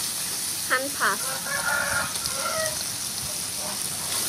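A rooster crows about a second in, over the steady sizzle of shrimp frying in oil in a pan.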